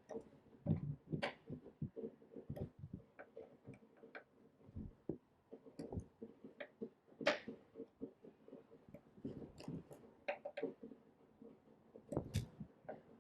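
Irregular small clicks and taps of an Allen key working the bolts of a plastic tank lock ring on a motorcycle fuel tank, as the bolts are done up by hand.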